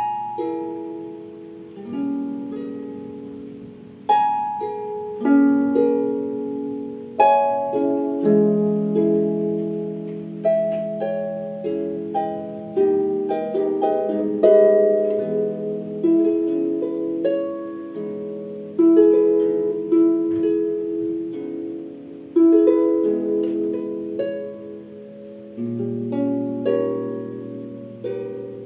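Solo harp improvisation: plucked chords and single notes, a new one about every one to two seconds, each left to ring and fade over low bass notes.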